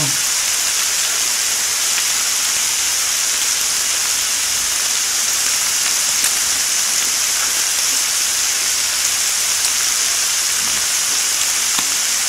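Pork belly slices sizzling on a hot grill plate: an even, steady high hiss of fat frying.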